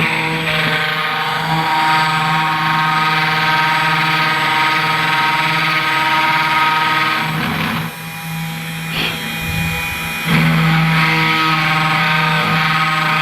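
CNC 3018 Pro spindle motor running with a steady whine as the engraving bit cuts copper-clad board. The sound drops for about two seconds past the middle, then comes back at full strength.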